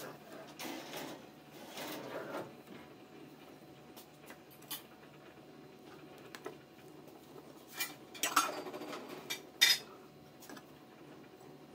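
Metal fork mashing boiled potatoes on a ceramic plate: soft scraping and squashing, with scattered sharp clinks as the tines hit the plate. The loudest clinks come late on.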